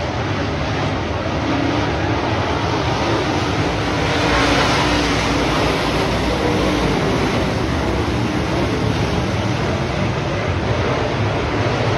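A field of dirt-track modified race cars racing, their engines a loud, dense, continuous noise that swells about four seconds in as the pack passes close by.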